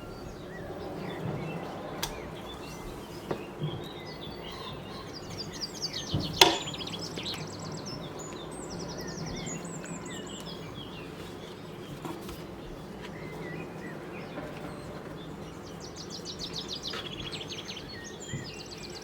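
Small birds chirping in quick, high trills on and off over a steady background noise. There is a single sharp knock about six seconds in.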